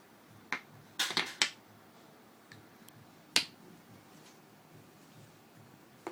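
Sharp clicks and taps of jigsaw puzzle pieces being handled and fitted together: one click, then a quick run of three or four about a second in, and another single click a couple of seconds later.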